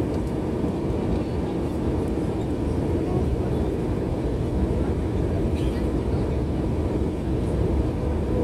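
Airbus A320 cabin noise while climbing after takeoff: the steady, even noise of the jet engines and the airflow, heard from inside the cabin, heaviest in the low range and unchanging.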